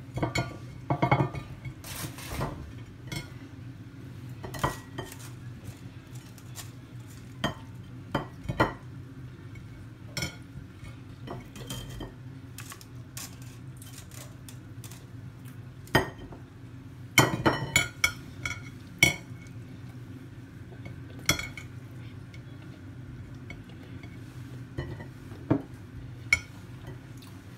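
Metal tongs and a wire frying basket clinking and scraping against a ceramic plate as fried plantain pieces are served onto it. Irregular clinks come in a cluster about a second in and another around seventeen seconds in, over a steady low hum.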